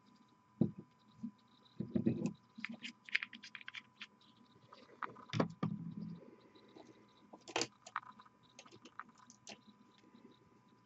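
Handling noises at a hobby desk: irregular small clicks and taps with about four louder knocks, as a painter's hands move the miniature and painting tools. A faint steady high whine runs underneath.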